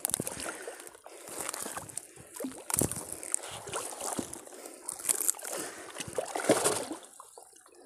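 Wet nylon gill net being hauled over the side of a small boat, water sloshing, splashing and trickling off the mesh in irregular small splashes and rustles.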